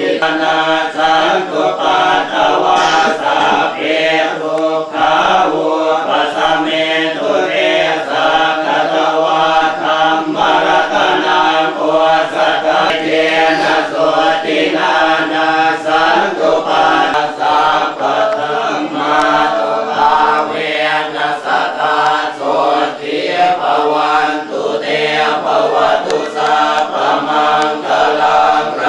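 Buddhist monks chanting Pali verses together in a steady, unbroken recitation of many low male voices, the group chanting of a Thai Buddhist consecration rite.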